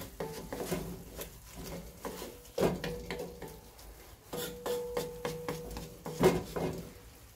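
Wooden spatula stirring and scraping through bacon and vegetables in a cast iron Dutch oven, knocking against the pot's sides and bottom. Some knocks leave a short ring, and the loudest come about two and a half seconds in and again near the end.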